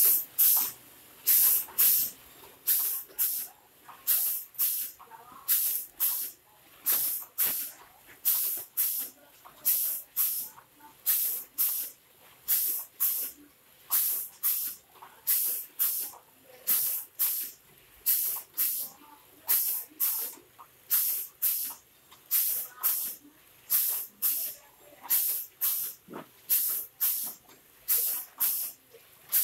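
Automatic vertical pouch packing machines for masala powder running in a steady cycle, with short sharp hisses of compressed air from their pneumatic valves, about two a second.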